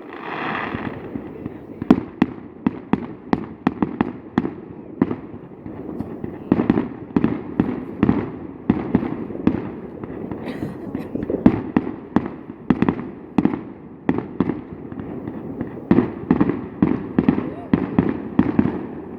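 Fireworks display: aerial shells bursting in rapid, irregular succession, several sharp bangs a second, with brief crackling and a short whistle near the start.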